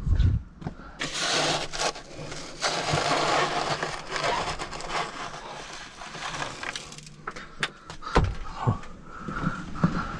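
A small plastic scraper scraping and chipping built-up ice from the walls of an RV fridge's freezer compartment: several long rasping scrapes, then a few sharp knocks of ice about eight seconds in.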